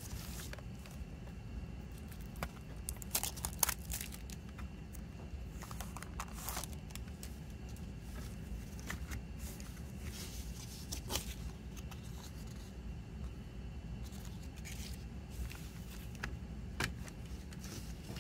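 Plastic double-disc CD jewel case being handled and opened by hand: scattered clicks, taps and scrapes of the plastic, with a cluster of louder clicks about three seconds in and single sharp clicks around eleven and seventeen seconds, over a steady low hum.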